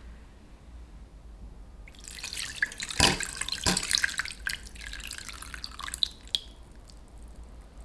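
Liquid running and splashing into a container with dripping, starting about two seconds in and dying away after about six seconds, with two sharp knocks near the middle.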